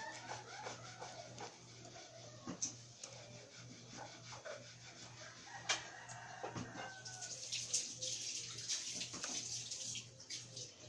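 Laptop keyboard keys typed in scattered soft clicks over a low steady hum, with a few short gliding calls in the first couple of seconds and a rise of hiss in the second half.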